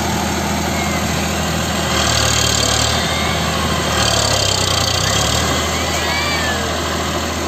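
Eicher 551 tractor's three-cylinder diesel engine running as the tractor, stuck in paddy mud, tries to pull free. It revs up twice, about two seconds in and again about four seconds in, then drops back.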